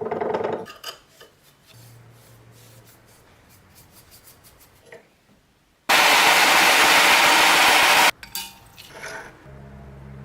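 Workshop tool noises: a short rubbing scrape, then about two seconds of loud, steady hissing that cuts off suddenly, and a low hum near the end.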